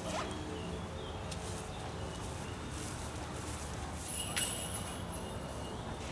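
Outdoor park ambience: a steady low rumble with faint high bird chirps now and then, a slightly clearer chirp about four seconds in.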